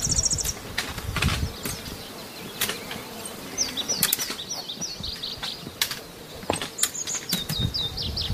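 Small birds singing: a brief high trill at the start, then two runs of quick, repeated, downward-sliding whistled notes. Scattered sharp clicks and a low rumble in the first second sound underneath.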